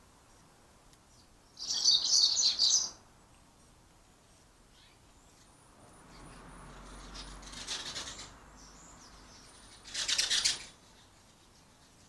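European goldfinches twittering in three short bursts: about two seconds in, around eight seconds and around ten seconds. A string of thin, high call notes comes just before the second burst.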